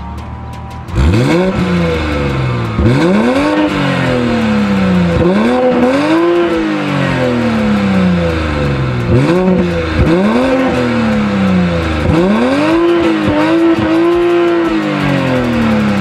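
BMW X5 xDrive40i's 3.0-litre turbocharged inline-six, breathing through Fi Exhaust sport 200-cell downpipes, free-revved while standing. There are about seven quick blips, each snapping up and falling slowly back toward idle, and one near the end is held for about two seconds. Music plays for about the first second before the revving starts.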